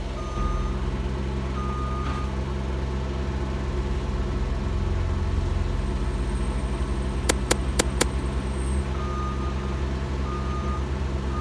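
Diesel engines of a compact track loader and a mini excavator running steadily. The track loader's backup alarm beeps twice near the start and again three times in the last couple of seconds. Four sharp metallic clanks come in quick succession about seven to eight seconds in.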